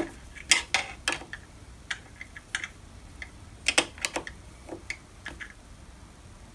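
Irregular sharp metallic clicks and ticks of a long hex key turning and seating in socket cap screws, densest in the first second and again about four seconds in, thinning out toward the end.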